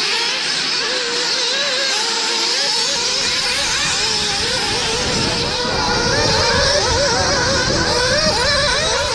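Several nitro-powered RC buggies' small glow engines buzzing at high revs, their pitches rising and falling over one another as they accelerate and slow round the track. A low rumbling noise joins about three seconds in.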